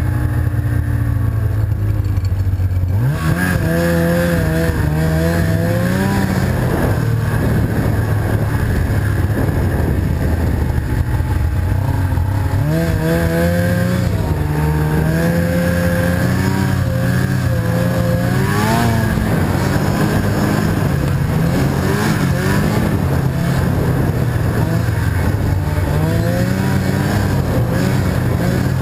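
Snowmobile engine running under way, its pitch rising and falling with the throttle; it picks up sharply about three seconds in.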